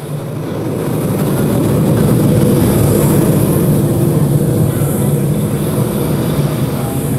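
Composed hydrophone recordings of underwater sound played back over loudspeakers: a dense, steady rumbling wash with a high hiss on top, growing louder over the first two seconds and then holding.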